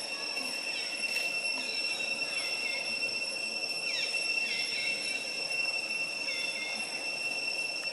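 Steady high-pitched drone of insects in the trees, holding two even tones, with short falling chirps every second or so over it.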